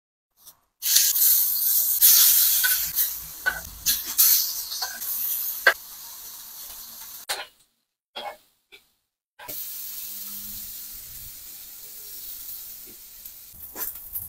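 Shrimp sizzling in hot oil on a flat stovetop pan: a loud sizzle starts suddenly about a second in, with a few sharp clicks of metal tongs. After a brief drop-out, a steadier, quieter sizzle follows.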